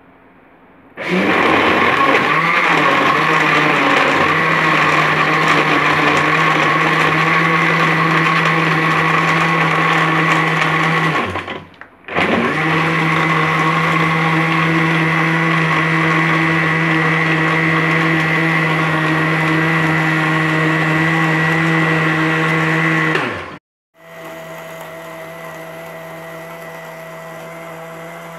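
Countertop electric blender running, grinding milk, cocoa and brownies into a shake. It starts about a second in and runs for about ten seconds, drops out briefly, runs again for about eleven seconds, then cuts off sharply. A fainter steady hum follows.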